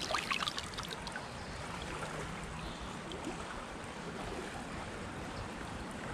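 A rubber-gloved hand plunging into shallow river water, splashing for about the first second, followed by the steady wash of the river.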